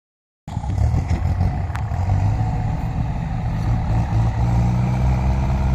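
Kubota M6240 tractor's diesel engine running, starting about half a second in. It is uneven at first and settles into a steady, low note.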